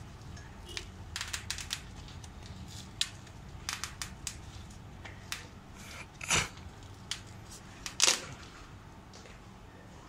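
Taped foam rubber insulation on an air-conditioning pipe joint crackling in short irregular bursts as a hand presses and squeezes it, the two loudest about six and eight seconds in; the insulation is waterlogged from a leak at the joint. A steady low hum runs underneath.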